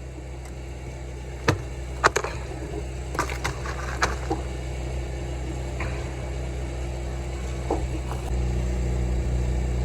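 Mini excavator's diesel engine running steadily, with a few short metallic clanks in the first four seconds and another near eight seconds; the engine grows louder about eight seconds in.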